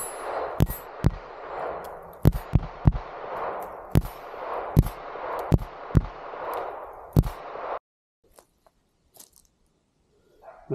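Pistol fired in a steady string, about a dozen shots spaced a half second to a second apart, each followed by a long echo; the sound cuts off suddenly a little after seven seconds in.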